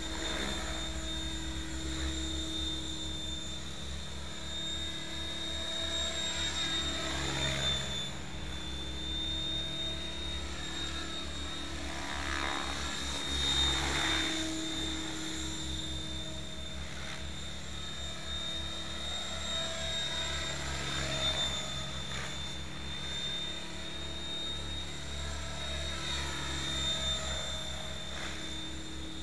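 Mikado Logo 600 electric RC helicopter in flight: rotor blades whirring over a steady high whine, swelling and fading several times as it flies back and forth.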